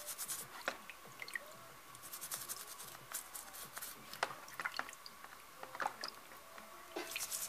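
Faint toothbrush scrubbing on the small metal brew-group screen of a DeLonghi Magnifica coffee machine: a run of short scratchy strokes and small clicks, with light wet sounds as the screen is worked in cleaning liquid.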